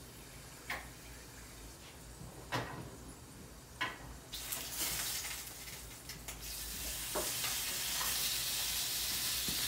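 A few light clicks and knocks, then about four seconds in, bacon slices laid into hot oil in a frying pan start to sizzle. The sizzle grows steadily louder.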